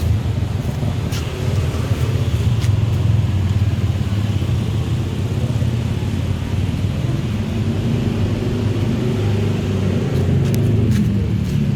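Steady low mechanical rumble with a few sharp clicks; near the end a pitched note rises.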